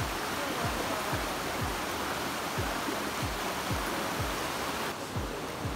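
Steady rushing of a rocky forest stream, under background music with a regular beat of deep kick drums, about two a second.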